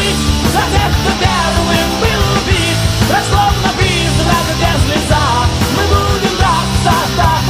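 Loud rock music with a driving beat, laid over the pictures as a soundtrack.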